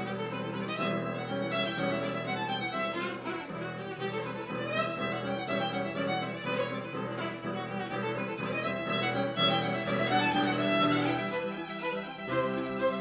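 Violin and piano duet: a bowed fiddle melody over piano accompaniment.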